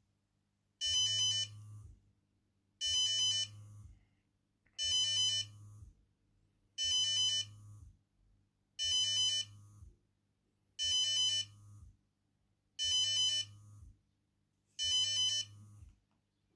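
Firefighter's alerting device sounding the test alarm: a short electronic beeping phrase repeated eight times, one every two seconds, with a low vibrating buzz under each one.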